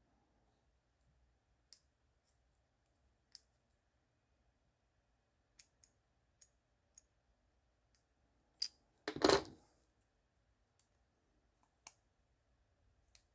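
Small plastic clicks and taps from an Acura RDX key fob's case being handled and pried at, scattered every second or two. A louder clatter comes about nine seconds in.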